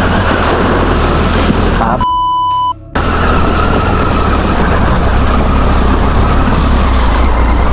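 Triumph Tiger 800's three-cylinder engine pulling the bike through a shallow stream crossing, with water splashing and rushing around the wheels. About two seconds in, a short censor bleep covers a word.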